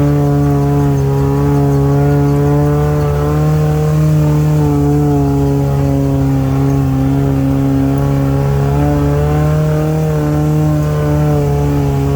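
Off-road 4x4 engine running at steady, moderately raised revs, its pitch wavering only slightly, as when crawling a trail under load.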